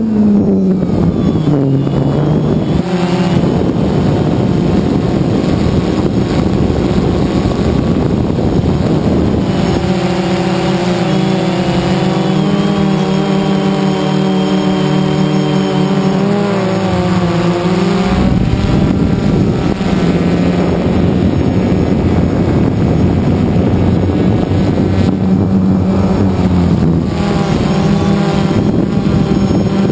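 DJI Phantom 2 quadcopter's electric motors and propellers, heard close up from the drone's onboard camera: a loud, steady buzzing hum whose pitch dips and rises several times as the motors change speed in flight.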